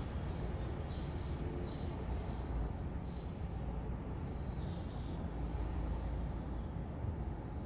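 Steady low outdoor rumble of distant traffic coming in through an open door, with faint short bird chirps now and then.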